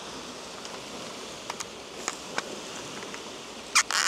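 Steady hiss of rain and nearby water with a few faint ticks, then a sharp crinkle of a plastic snack packet being handled near the end.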